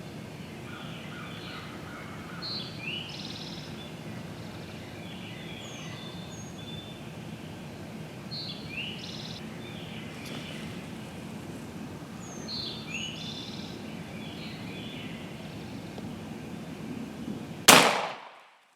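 Songbirds singing in the woods, a short chirping phrase repeating every three to four seconds over a steady background hiss. Near the end comes a single loud shot from a Stevens 301 .410 single-shot shotgun, which dies away quickly.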